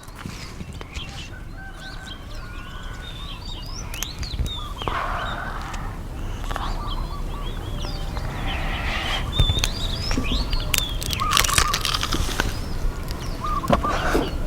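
Birds chirping and calling throughout, with scattered sharp crunching clicks, more frequent in the second half, from people biting into crispy deep-fried chicken.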